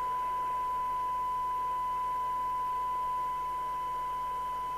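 Steady 1 kHz test tone with faint hiss, the signal generator's modulation tone as demodulated by the FM CB radio's receiver during a sensitivity check.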